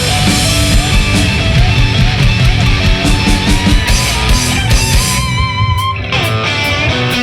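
Loud hard rock music with driving drums and electric guitar. About five seconds in, a lead guitar holds one note with vibrato for about a second.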